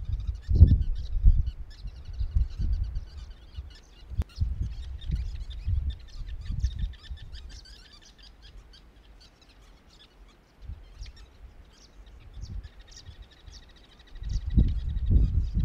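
Birds chirping and twittering, over irregular low rumbles and thumps that die away for several seconds in the middle and come back near the end.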